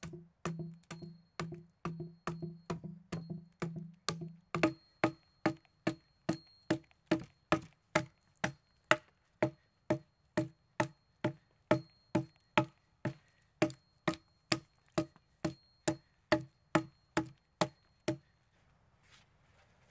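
Axe hewing along a log: steady, evenly spaced chops, about two a second, each a sharp knock with a short ring. The chopping stops near the end.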